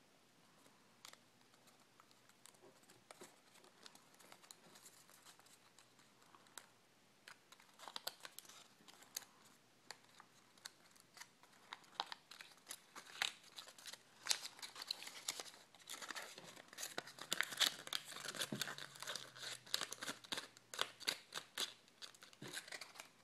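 A sheet of origami paper being folded and creased by hand: crisp crinkling and crackling, sparse at first and growing busier about a third of the way in.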